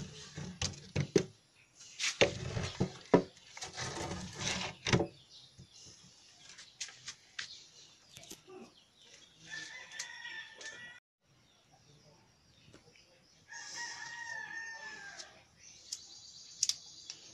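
Sticks of firewood knocking and clattering as they are laid into a wood-burning stove, loudest in the first few seconds. Later a rooster crows twice, the second crow falling in pitch at its end.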